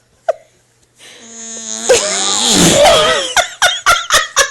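A fart sound effect played through a speaker: a low, buzzy blurt lasting about two seconds that wavers in pitch near its end. It is followed by people laughing in quick, evenly spaced bursts.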